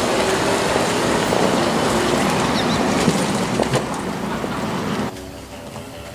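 Golf cart driving off across tarmac, a steady noisy rumble that drops away suddenly about five seconds in.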